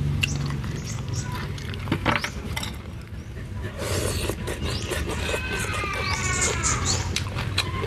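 Close-up eating sounds: chewing and lip-smacking clicks, then noodles slurped from a bowl of soup about four seconds in. A drawn-out, falling animal call sounds in the background over the second half.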